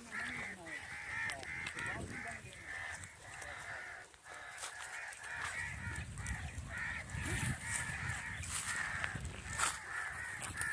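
Crows cawing over and over in a rapid, harsh string of calls, several birds calling together. A low rumble joins in from about five to eight seconds in.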